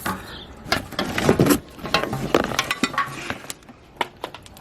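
Irregular clicks, knocks and rattles of objects being handled, with no steady sound underneath.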